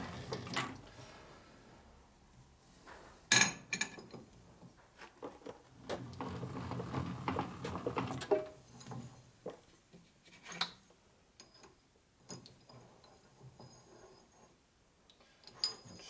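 Scattered metal clicks and clinks as a lathe is set up by hand: the carriage handwheel is turned and the tool holder is fitted and adjusted on the tool post. One sharp metallic clack about three seconds in is the loudest sound.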